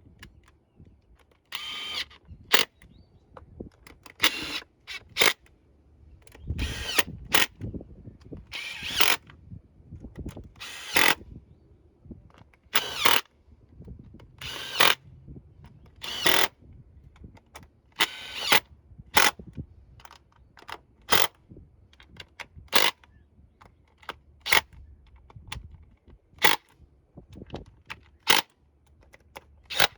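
Tool work: short, irregular bursts of clicking and rattling, one every second or two.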